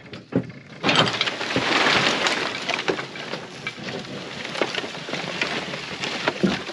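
Construction debris (wooden boards and scrap metal) shifting, scraping and clattering in a dump truck bed as the hoist tips it up. It is a dense rattling with many sharp knocks, starting about a second in.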